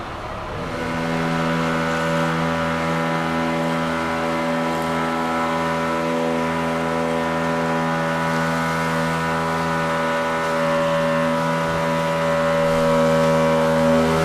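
A jet boat's engine running steadily at a constant pitch, driving its water jet as an improvised deck gun on the fire; it comes in about half a second in and grows a little louder near the end.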